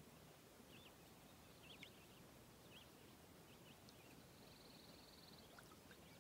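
Near silence over still water, with faint songbird chirps scattered through it and one short, rapid trill of about a second, about four and a half seconds in.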